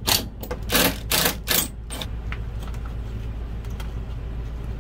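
Socket ratchet clicking in short strokes as the bolts on the refrigerator's mounting feet are loosened: four quick bursts in the first two seconds, then only faint ticks. A steady low hum runs underneath.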